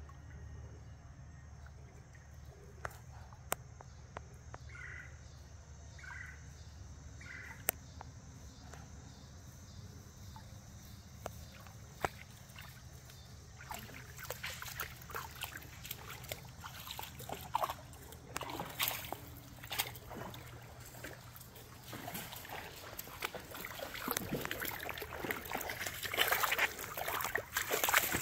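Shallow creek water sloshing and splashing from wading. It is quiet at first, then starts about halfway and grows busier near the end, where dogs are wading among the stones.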